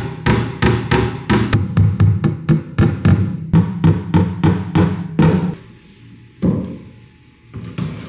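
Claw hammer tapping small metal shelf-support pins into the pre-drilled holes of a particleboard cabinet side, in a quick run of sharp taps. The taps stop about five and a half seconds in, followed by two single knocks.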